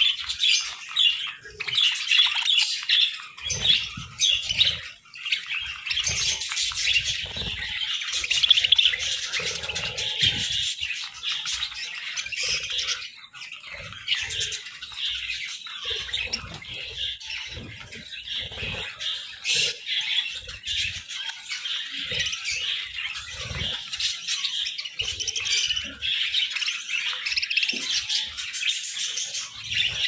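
A flock of budgerigars chattering and chirping continuously, a dense mix of many overlapping short calls, with short low knocks and thumps scattered throughout.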